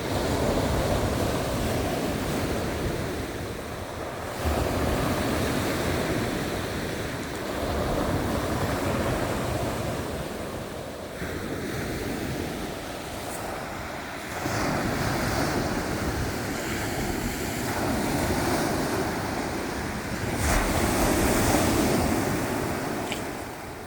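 Rough sea surf, waves breaking again and again in loud swells every few seconds, with wind buffeting the microphone.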